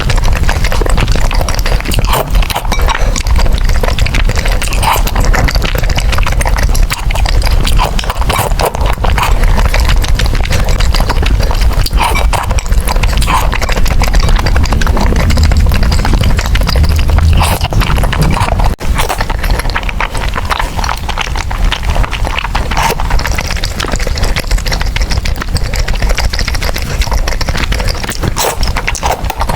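Close-miked chewing and slurping of noodles: a dense, continuous run of mouth clicks and smacks.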